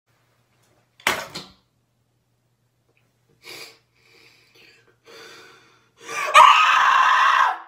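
A person's voice: a short sharp breath about a second in, a few faint breathy sounds, then near the end a loud, drawn-out cry lasting over a second.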